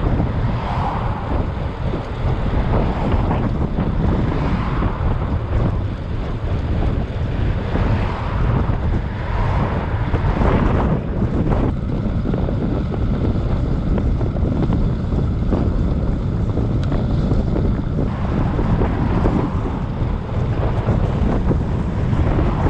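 Wind buffeting a microphone carried on a moving bicycle: a steady rushing rumble of air from the ride.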